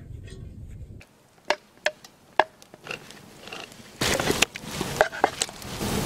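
A handful of sharp metallic clinks and knocks as canned apple pie filling is emptied into a cast-iron Dutch oven. From about four seconds in, a steady rushing noise sets in under more clicks.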